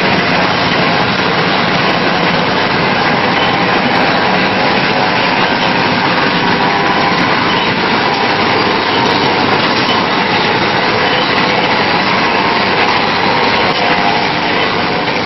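Machinery of a sawdust briquette production line running: a loud, steady mechanical din from its electric motors, briquette extruders and conveyor.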